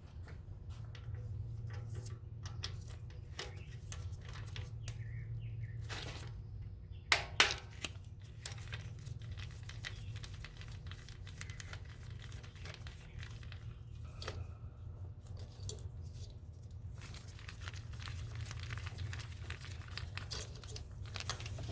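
Ratchet and 10mm socket clicking as the ignition-coil hold-down bolts are backed out, with scattered tool handling clicks and two louder knocks about seven seconds in. A steady low hum runs underneath.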